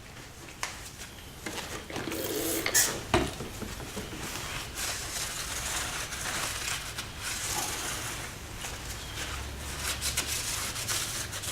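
Towel rubbing and wiping across a motorcycle's front brake disc to clean off old pad residue, with scattered light clicks and knocks, the sharpest about three seconds in.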